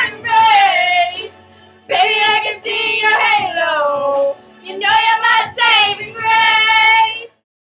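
Teenage girls singing loudly and deliberately badly in phrases of long held, wavering notes. The singing cuts off suddenly near the end.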